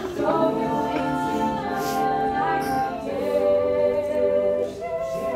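Group of voices singing in harmony, holding long notes, moving to a new chord about three seconds in.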